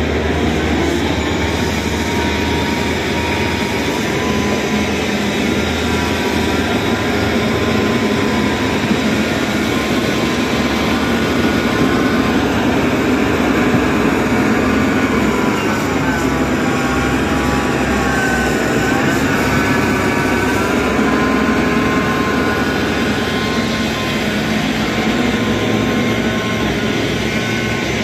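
Motor grader's diesel engine running steadily as it drives over the dirt roadbed, with a high whine that wavers in pitch around the middle.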